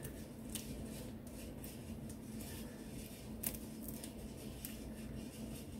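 Faint scraping and a few soft clicks of a rubber spatula against a stainless steel mixing bowl as a thick meat-and-enchilada-sauce mixture is pushed out of it, over a low steady hum.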